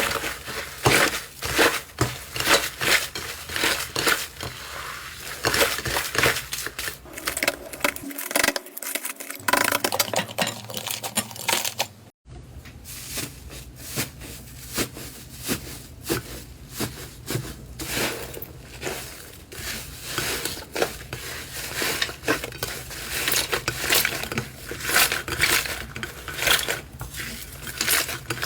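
Slime being squeezed, poked and pressed by hand, giving dense, irregular crackling and popping clicks, with a brief cut to silence about twelve seconds in.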